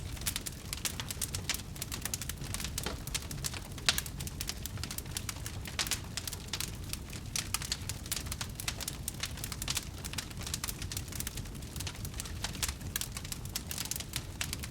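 Fire burning and crackling: dense, irregular pops and snaps over a steady low rumble.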